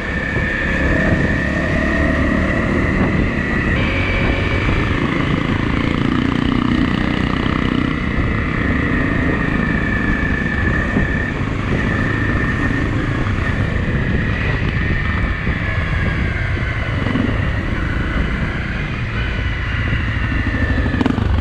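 Motorcycle engine running steadily at low speed, heard on board while riding, with a steady high whine over the low engine rumble.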